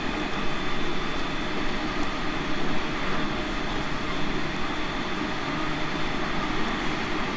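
Steady running noise of a JR Central 313 series 5000 subseries electric train as heard on board at speed: a continuous rumble of wheels on rail with a faint steady high tone above it.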